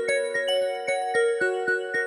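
Stock MIUI ringtone of a Xiaomi Mi Max 2 playing: a quick melody of struck, ringing pitched notes, about four a second.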